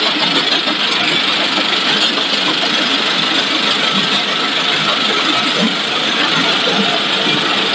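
Automatic continuous frying line running: a steady, loud, even rush of machine noise that does not change.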